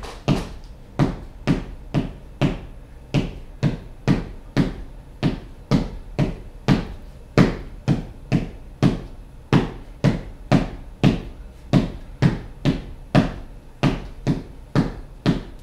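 A drum struck in a steady, driving pattern, about three deep thuds a second, each dying away quickly, some falling in quick pairs.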